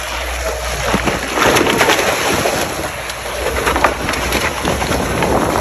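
Wind buffeting the microphone over rushing, splashing sea water on a fishing boat's deck: a loud steady hiss that swells for about a second, a second and a half in.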